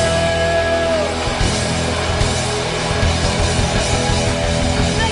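Rock music with guitar, a long held note at the start that tails off about a second in.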